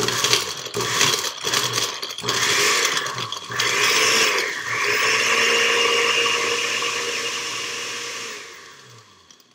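Countertop blender with a glass jar blending a smoothie of strawberries, orange juice, ice and milk. It runs choppy and uneven for the first few seconds, then settles into a steady whir, and winds down to a stop near the end.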